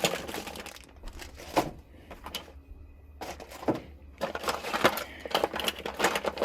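Rummaging through a bucket of small parts while searching for a rubber elbow fitting: irregular clicking and clattering, busiest in the second half.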